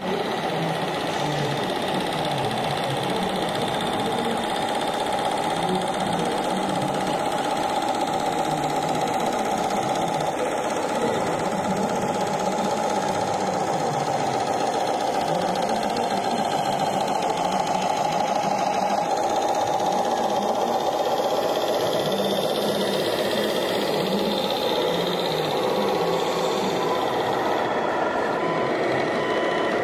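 Radio-controlled model machinery running: a steady mechanical whine with a rumbling undertone that wavers but never stops.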